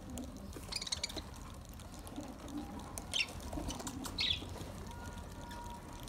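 Budgerigars calling with short, high chirps: three brief calls, about one, three and four seconds in.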